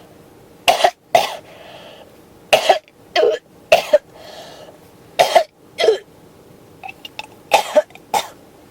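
A person in a coughing fit: about ten hard coughs, mostly in pairs about half a second apart, with softer breaths drawn in between.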